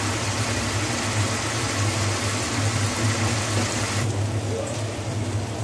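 Water poured from a measuring cup into a hot pan of frying spice masala, hissing and splashing. The hiss drops off about four seconds in.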